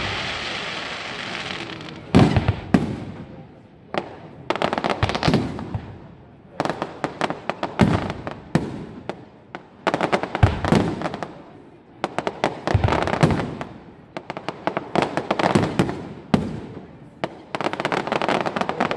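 Aerial firework shells bursting in quick succession, a sharp bang every second or so, each followed by dense crackling; a hissing crackle opens the stretch before the first bang about two seconds in.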